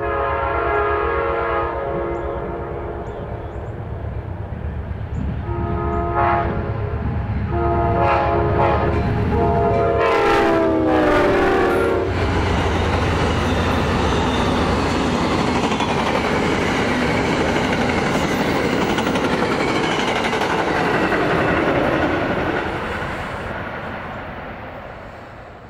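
Amtrak GE Genesis diesel locomotives sound their multi-chime air horn in a series of blasts for a grade crossing over a low engine rumble. The last blast drops in pitch as the locomotives pass. The passenger cars then roll by with steady wheel-on-rail noise that fades near the end.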